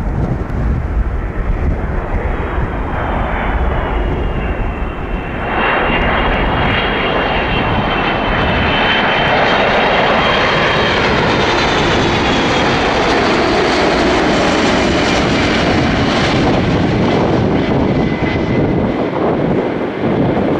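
Jet engines of an Airbus A330-300 on final approach. The noise grows to a steady loud rush about five seconds in as the airliner comes closer, with a high whine over it that wavers and slowly sinks in pitch.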